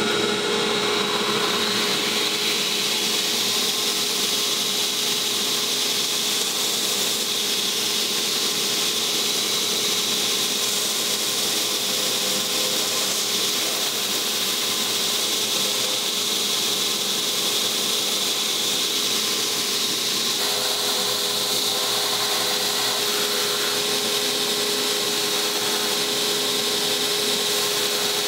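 Belt grinder running steadily, a constant motor hum under the hiss of the abrasive belt as a knife handle is ground and shaped against it.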